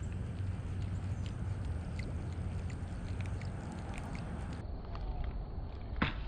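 Steady low rumble of wind on the microphone with faint scattered ticks, and a sudden louder noise near the end.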